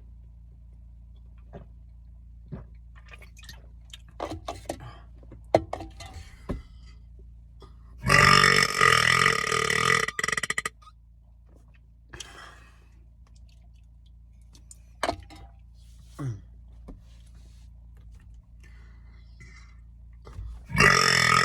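A man burping after drinking an energy drink: one long, loud burp of nearly three seconds about eight seconds in, and a second loud burp starting just before the end. Small clicks come before the first burp.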